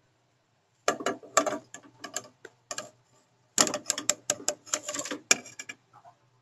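Wooden spatula knocking and scraping against a pot while stirring chunks of chicken: an irregular run of clacks starting about a second in, busiest in the second half and stopping shortly before the end.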